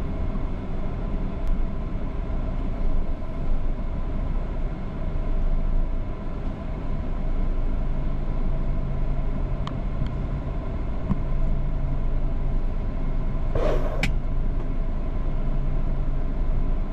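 Steady cab rumble of a tractor-trailer's diesel engine idling in stop-and-go traffic, heard from inside the cab. A short hiss cuts in about three-quarters of the way through.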